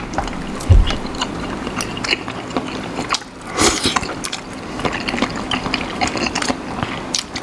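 Close-up eating sounds: noodles slurped and chewed, with many small wet mouth clicks. There is one longer slurp about three and a half seconds in.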